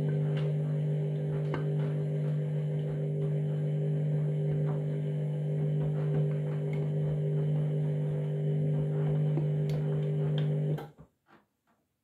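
Candy washing machine humming steadily during its start-up, a pitched electrical drone with a few faint clicks, which cuts off suddenly near the end.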